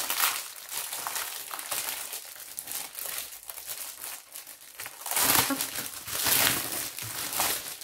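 Clear plastic wrapping crinkling as hands handle a magazine in its sleeve and pull it out. The crackling is loudest from about five to six and a half seconds in.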